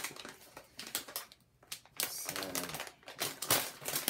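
A snack-chip bag crinkling and crackling as it is handled, in irregular runs with a short pause about a second and a half in.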